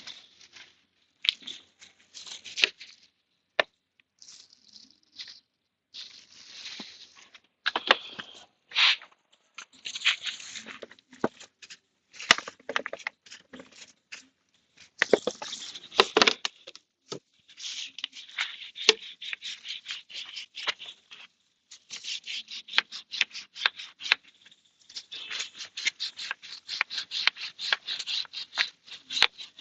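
A brush scrubbing a motorcycle drive chain wet with diesel and chain cleaner: quick scraping strokes in runs with short pauses, becoming faster and denser near the end.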